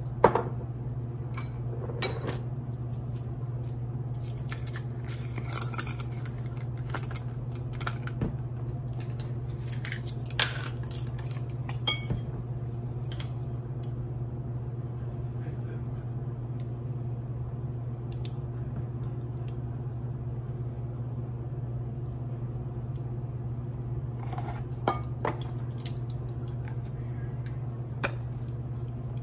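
Metal measuring spoons clinking against spice jars and a ceramic bowl, with scattered sharp clinks and stretches of rattling as the spices are scooped and tipped out. A steady low hum runs underneath.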